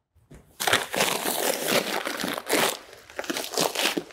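50-pound plastic bags of rock salt crinkling and crunching as they are lifted and handled, starting about half a second in, with several louder rustles as bags are grabbed and shifted.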